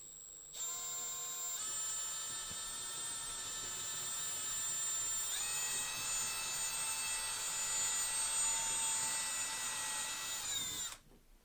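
Power drill running with a bit, pre-drilling a pilot hole in wood so the wood won't split. The motor whine steps up in speed twice early on and again about halfway through, then winds down and stops near the end.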